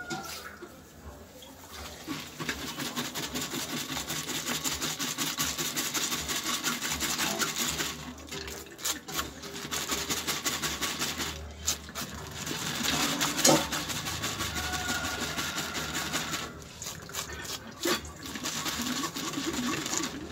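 Passion fruit pulp and sugar being rubbed by hand against a mesh strainer: a rapid, gritty, wet scraping in quick repeated strokes, with short pauses about eight, eleven and seventeen seconds in.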